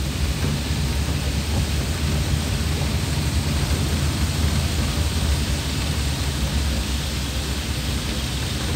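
Steady low rumble and hiss of a vehicle driving slowly on a wet road, heard from inside the cabin.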